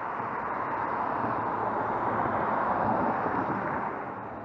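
An SUV driving past on the road: tyre and engine noise swelling to a peak about three seconds in, then fading.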